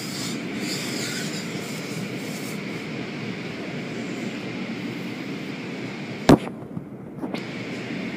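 Automatic car wash running, heard from inside the car: a steady rush of water spray and wash machinery. About six seconds in comes one sharp knock, and the hiss drops away briefly after it.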